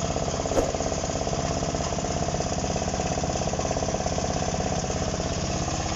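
Large excavator's diesel engine running steadily with an even, rapid chugging, with one brief click about half a second in.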